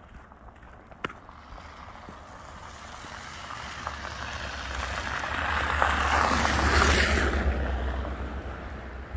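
A car driving past on a snow-covered road, its tyres hissing through the snow and slush. The sound swells as it approaches, is loudest about six to seven seconds in, then fades as it goes by.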